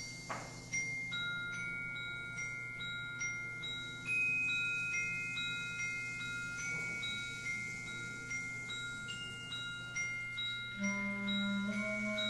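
Soft, high mallet-percussion notes from a concert band, struck one at a time about twice a second and left to ring. Lower sustained notes from the band come in near the end.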